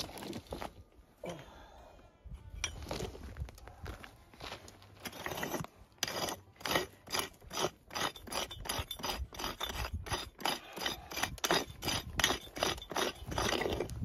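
Prospecting pick chopping and scraping into red stony soil, digging out a detected gold target. A few strokes at first, then quick repeated chops from about five seconds in.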